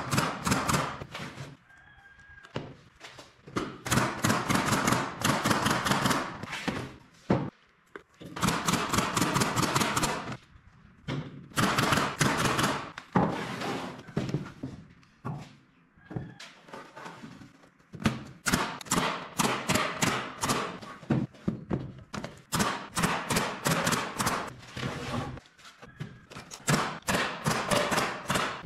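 Pneumatic brad nailer firing brads into pine boards: rapid series of sharp shots in bursts several seconds long, with short pauses between them, mixed with thuds of the boards being handled.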